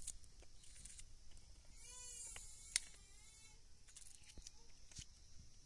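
A goat bleating twice in a wavering voice, with a sharp knock just before the second bleat and a few fainter knocks later.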